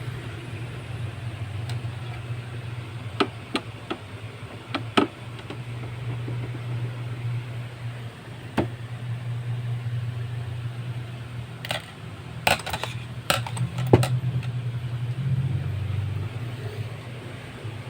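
Scattered clicks and knocks of plastic printer parts being handled and taken apart, with a quick cluster of them late on, over a steady low hum.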